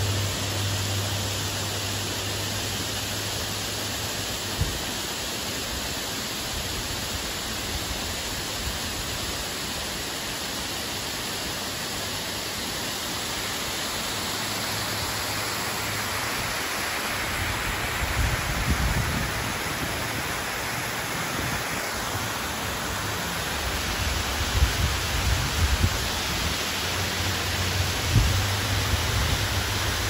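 Small waterfall and rocky creek rushing steadily, a constant even hiss of falling and tumbling water. In the last third, irregular low bumps on the microphone break in over it.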